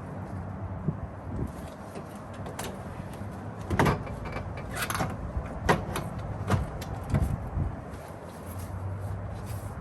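Irregular clicks and knocks of a car's interior door panel and its parts being handled and fitted back onto the door, over a low steady hum.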